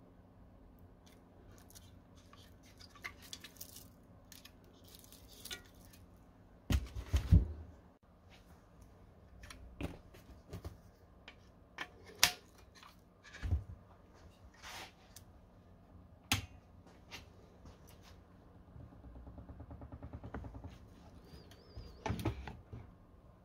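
Handling noise from a graphics card being turned over in the hands and set down: scattered clicks, rustles and light knocks, the loudest knock about seven seconds in. A faint steady low hum runs underneath.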